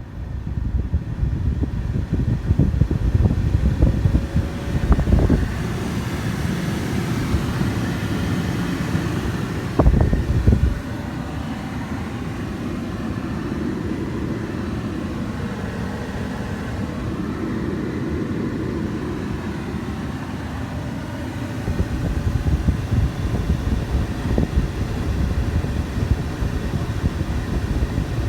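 Nissan Lafesta B30's air-conditioning blower fan running, air rushing from the dash vents and buffeting the microphone with gusty wind noise, with two brief louder bumps about 5 and 10 seconds in. The faint rumble from the blower motor that the owner is chasing is drowned by the wind noise.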